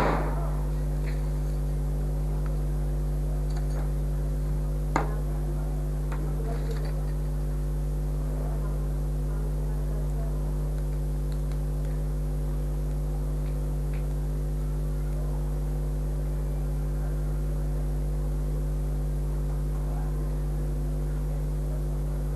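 Steady electrical mains hum with a stack of overtones, unchanging throughout, with a sharp click about five seconds in.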